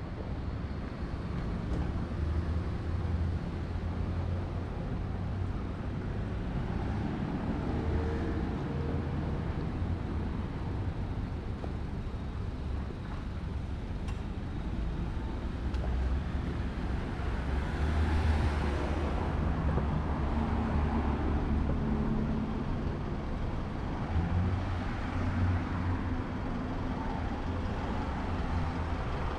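Road traffic: motor vehicle engines running steadily, with one vehicle passing close about two-thirds of the way through.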